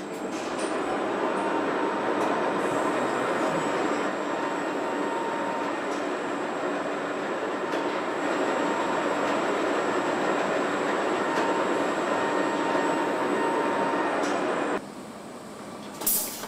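Steady mechanical rushing noise of car-assembly-line machinery, with a faint thin whine running through it. It cuts off suddenly near the end, and a brief sharp hiss-like click follows.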